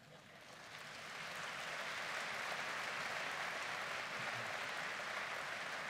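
Audience applauding, swelling over about the first second and then holding steady.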